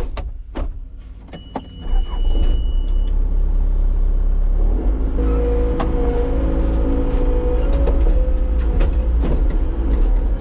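Skid steer: a steady high beep for a second or two, then the diesel engine starts about two seconds in and runs loudly, picking up in pitch and load a few seconds later.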